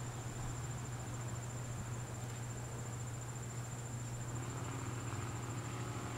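Steady high-pitched insect chirring, as of crickets on a summer evening, over a constant low hum. A faint drone joins in near the end.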